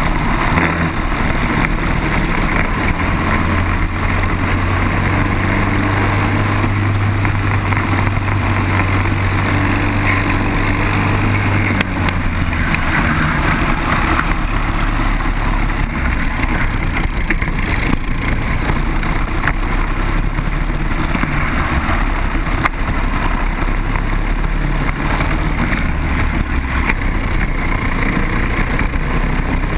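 Onboard sound of a Briggs & Stratton four-stroke kart engine running at racing speed over a steady rushing noise. It holds one note for about the first twelve seconds, then its pitch shifts.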